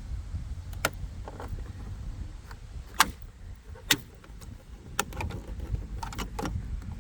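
Sharp plastic clicks and snaps as a pry tool works a black plastic trim cover off its clips: single clicks spaced a second or so apart, the loudest about three seconds in, then a quick run of clicks near the end, over a steady low rumble.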